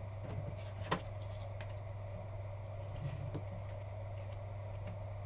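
Steady low electrical hum with a few faint short clicks and taps, the sharpest about a second in, from a trading card in a hard plastic holder being handled and turned over.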